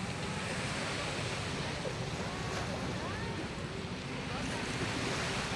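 Strong sea waves breaking and washing onto a sandy beach as a steady surf noise, with wind buffeting the microphone.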